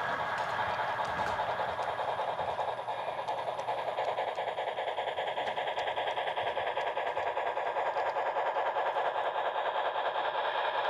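HO scale model Southern Pacific steam freight train running past, its cab-forward helper locomotive going by, with a rapid, even rhythm that grows a little louder after a few seconds.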